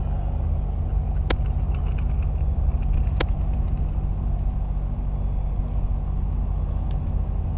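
Steady low mechanical rumble with a constant hum underneath, like an engine or machinery running. Two sharp clicks come about two seconds apart.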